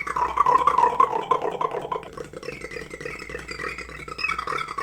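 A beatboxer's loud buzzing, rattling mouth sound, performed as his loudest sound; it is strongest for the first two seconds, then quieter.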